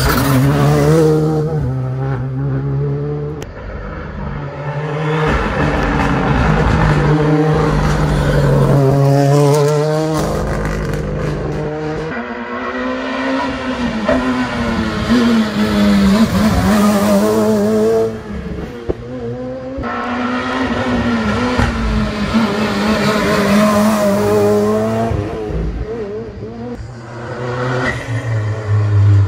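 Rally cars passing one after another through a tight hairpin: each engine revs hard, falling and rising through gear changes as the car brakes, turns and accelerates away. The sound swells and dips as each car comes and goes, with some tyre noise.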